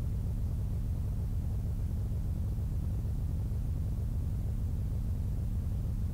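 A steady low rumble with a faint hiss above it, unchanging throughout, with no tones or distinct events.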